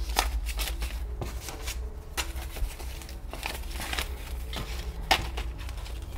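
Stack of paper banknotes being handled and straightened, the bills rustling and flicking in irregular crisp crackles.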